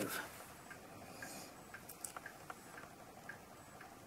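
Faint light ticking, about three or four short ticks a second with a few gaps, over quiet room tone.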